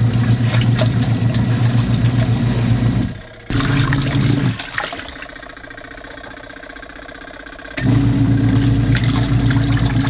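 Kuppet portable washing machine running its wash cycle, a steady motor hum with the water and clothes churning in the tub. The motor drops out briefly about three seconds in, runs again for about a second, then stops for about three seconds before starting up again near eight seconds, the wash action pausing between runs.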